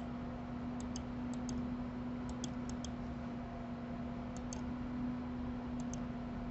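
Computer mouse left-button clicks, a dozen or so sharp clicks, many in quick pairs, over a steady low hum.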